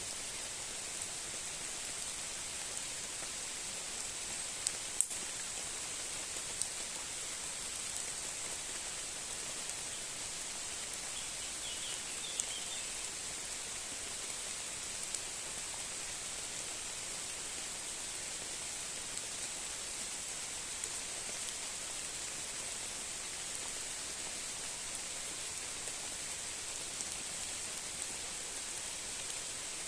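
Steady rain falling, an even hiss with scattered sharp ticks of single drops, the loudest about five seconds in.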